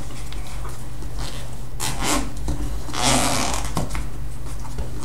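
Plastic packaging being handled during an unboxing: short rustles and slides, with a longer, louder scrape about three seconds in, over a steady low hum.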